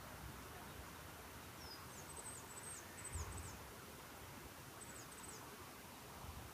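Quiet forest ambience: a small songbird gives thin, very high chirps in two quick runs, the first about two seconds in and the second near five seconds, over a faint steady hiss, with a brief low rumble a little after three seconds.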